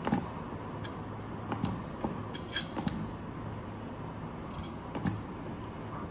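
Scattered light clicks and knocks from hands working a watch water-pressure test machine, about six in all, with a sharper one a little over two and a half seconds in. A steady low hum runs underneath.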